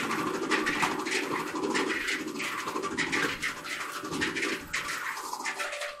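White Westinghouse clothes dryer running, its drum turning with an irregular rattling, scraping noise over a low rumble and a faint steady hum. The owner has put the noise down to the drum bearing, though he also suspects a support wheel he mounted inside to hold the drum.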